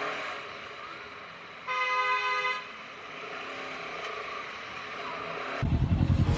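A vehicle horn sounds once, a steady single-pitched tone just under a second long, over a low urban background hum. Loud electronic music with a heavy beat starts near the end.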